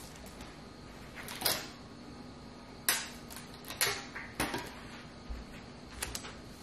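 Metallic foil party decorations being handled, rustling in several short bursts, the loudest about three seconds in.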